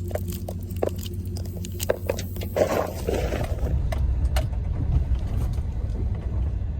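Pickup truck running, a steady low engine and road rumble heard from inside the cab, with scattered light clicks in the first couple of seconds and a brief rustle about two and a half seconds in.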